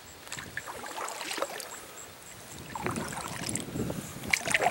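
Kayak paddle strokes in pond water, with splashing and dripping in about three uneven bursts.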